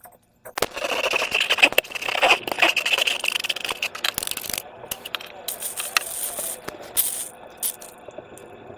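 Sticky slime squeezed and stretched by hand, a dense run of wet clicks and crackles that starts about half a second in and eases off to quieter crackling about halfway through.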